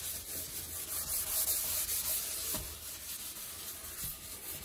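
Dish sponge scrubbing scouring powder over a porcelain sink: a steady rough rubbing, with a couple of light knocks about two and a half and four seconds in.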